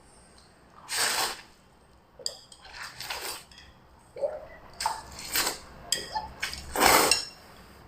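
A person slurping noodles: two loud slurps, one about a second in and one near the end, with short wet smacks and clicks of chopsticks or the bowl in between.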